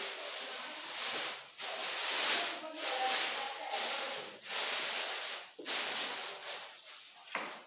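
Dry hissing rustle of dyed sawdust being scattered by hand from a plastic bag, with the plastic bags crackling as they are handled, in several bursts about a second long.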